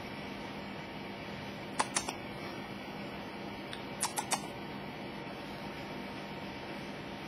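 Quiet indoor room tone: a steady hiss with a faint hum, broken twice by a quick run of three small sharp clicks, about two seconds apart.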